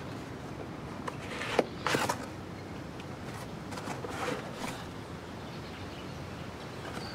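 Cardboard box being opened by hand: short bursts of rustling and scraping as the flaps are pulled open, with a sharp snap about a second and a half in and more rustling around four seconds in.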